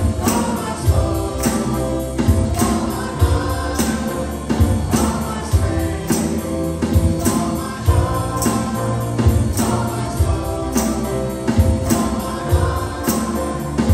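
Worship band playing a song with a group of singers, over electric bass, acoustic guitar, piano and drum kit keeping a steady beat.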